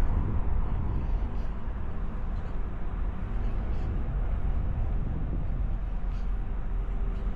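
Steady low outdoor rumble with a faint hum and no clear events.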